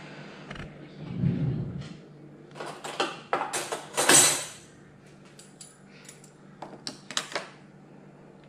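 Clinking and knocking of a drinking glass and spoon being handled, in several short clusters of sharp clicks, with a louder rushing scrape about four seconds in.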